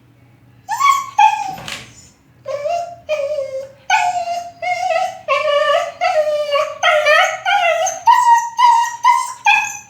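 A dog giving a run of short, high-pitched cries, two near the start and then a steady series at about two a second, each call rising and dipping slightly in pitch.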